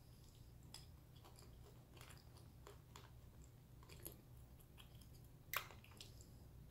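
Faint chewing of a piece of Sandbar super grit clay: a few soft, scattered crunches, the clearest about five and a half seconds in.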